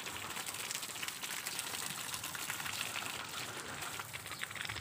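Water spraying from a garden hose with a thumb pressed over its end, spattering steadily onto leaves and potted plants.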